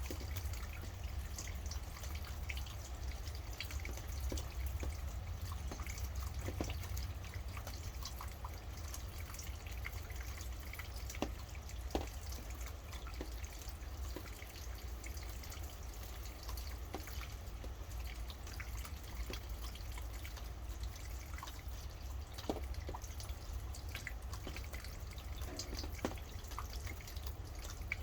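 Rain dripping: single drops falling in an irregular patter over a steady low rumble.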